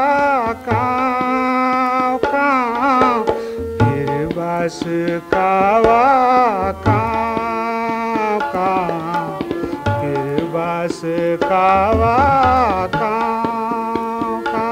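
Kumaoni folk song accompaniment: a tabla beat under a winding melodic line, over a steady held drone.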